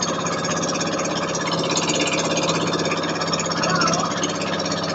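Motorboat engine running steadily, heard from on board the moving boat.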